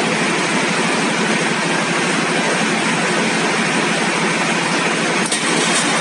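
Deutz 620-series V12 stationary engine running steadily, a loud, dense sound with a fast, even pulse.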